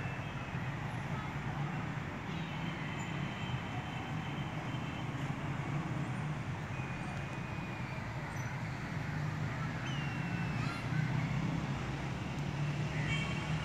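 Steady low outdoor background rumble, like distant road traffic, with a few faint short high chirps scattered through it.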